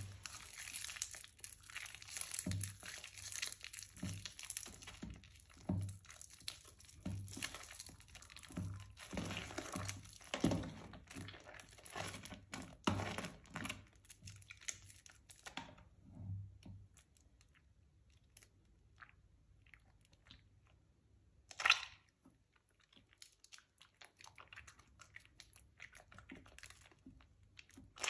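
Soaked, mushy Palmolive soap bars being squeezed and crumbled by hand in a tub of soapy water, making wet squishing and crunching sounds. The sounds are dense and busy at first, then sparser and quieter, with one louder sudden sound about three-quarters of the way through.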